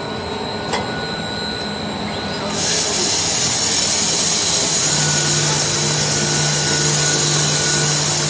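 Twin-screw co-extrusion blown film machine running: steady machinery hum with a light click about a second in. A loud, even hiss sets in about two and a half seconds in and holds, with a steady hum underneath.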